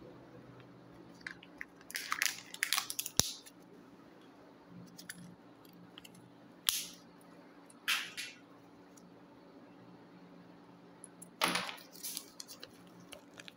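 Hands handling a Kinder Joy egg's plastic capsule and paper leaflet: a cluster of crinkly rustles ending in a sharp click about three seconds in, two brief rustles near the middle, and a longer papery rustle near the end as the folded leaflet is opened.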